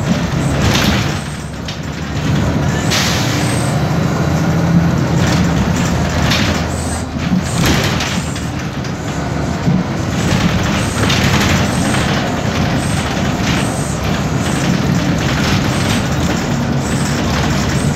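Cabin sound of a BMC Belde city bus under way: its Cummins ISBe 6.7 turbodiesel runs steadily through a ZF Ecomat 6HP504C automatic gearbox, with frequent short rattles from noisy loose parts in the body.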